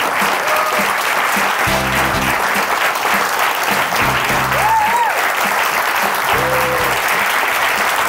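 Studio audience applauding steadily over instrumental theme music.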